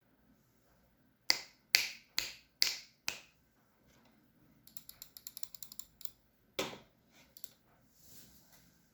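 Keychron C1 mechanical keyboard with Gateron Baby Kangaroo switches and NicePBT keycaps being typed on: five firm separate keystrokes about two a second, then a quick run of lighter keystrokes, then another firm stroke and a few soft ones. The board is dampened with case foam, PE foam and Tempest tape, and its plate-mount stabilisers are lubed.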